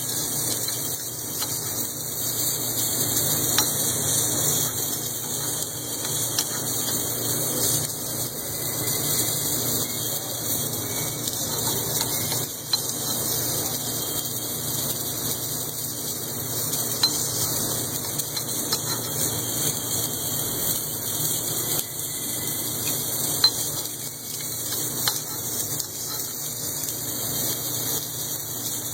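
Steady hissing, grinding noise of a machine working a crankshaft journal during an automated journal repair, with a few sharp clicks.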